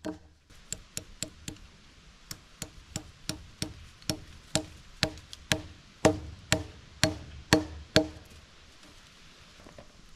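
Hammer driving a nail into timber to hold the hardware cloth: light taps about three a second, then slower, harder blows about two a second near the end, each with a short metallic ring.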